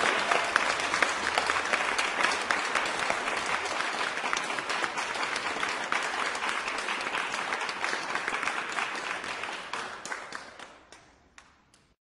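Crowd applauding: dense, steady clapping that thins out about ten seconds in, leaving a few last scattered claps before it stops.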